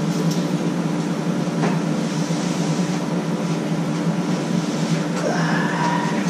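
Steady mechanical hum with a couple of faint clicks, and a faint rising tone near the end.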